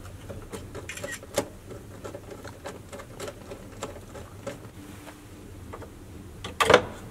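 Light clicks and taps of hard plastic car-interior trim parts and a screwdriver being handled, with one louder plastic clatter near the end.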